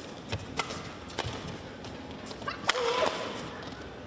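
Badminton rackets striking a shuttlecock in a fast doubles rally, a series of sharp hits with the loudest about two and a half seconds in. Court shoes squeak briefly on the court floor around the same point.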